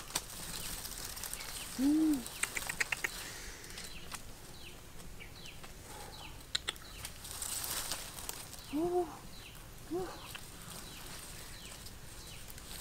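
Dry grass rustling and crackling as hands search through a grass tuft, with small birds chirping repeatedly in the background. Three short low calls stand out, one about two seconds in and two close together near the nine-second mark.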